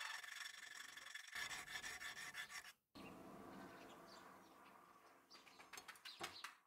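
Faint rasping strokes of a hand sharpening tool rubbed along a steel knife blade, with a light metallic ring, cutting off abruptly about three seconds in. After that there is only faint background noise with a few high chirps.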